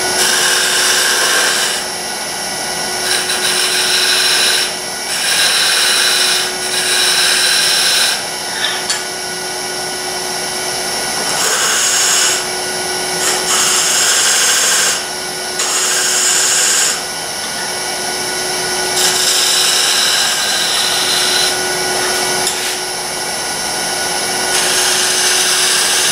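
Wood lathe running with a steady motor hum while a hand-held turning tool cuts a channel into the spinning wood, in about ten short passes of hissing cutting noise, each a second or two long.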